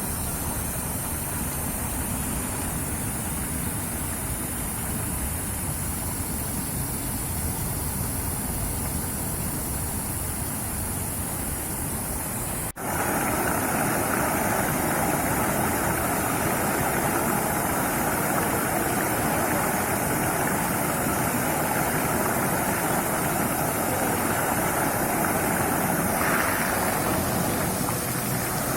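Fountain water splashing steadily. An abrupt cut about halfway through leads to a louder, fuller spray.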